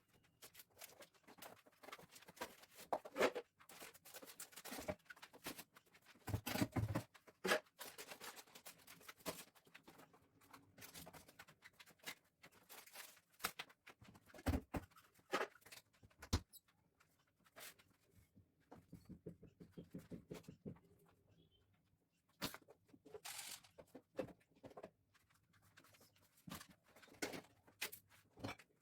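Containers, jars and plastic packets being taken out of a switched-off refrigerator: irregular rustling of bags with clicks and knocks of plastic containers being lifted and set down.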